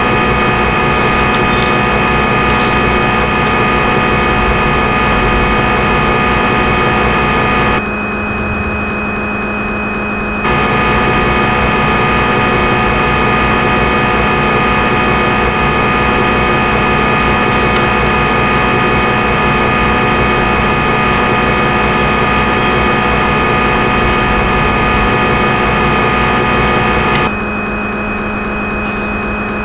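Simulated CNC lathe sound from the Swansoft CNC simulator: a steady spindle hum with a machining noise over it during the G71 turning cycle. The upper cutting noise drops out twice, about eight seconds in and again near the end, leaving the hum.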